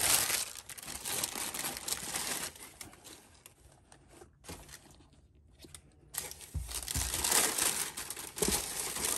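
Tissue paper rustling and crinkling as it is pulled back and pushed aside in a sneaker box, in bursts. It is quieter for a few seconds in the middle, then loud again near the end.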